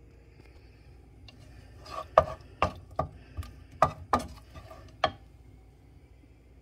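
Wooden utensil knocking against a frying pan while cherry tomatoes are turned in it: about eight sharp knocks over some three seconds.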